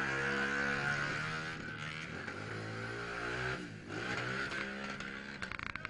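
Small single-cylinder pit bike engine revving hard, easing off for a moment about four seconds in and then revving up again. A quick run of sharp clicks near the end.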